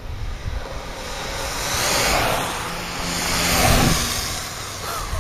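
Longboard wheels rolling fast on asphalt as riders go by close: a rush of wheel roar that swells and fades twice, the second pass the louder.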